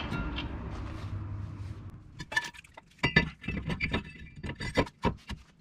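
Metal clinks and clanks from a brake rotor being handled and slid onto the front wheel hub's studs. The sharpest clank comes about three seconds in, with lighter clinks around it.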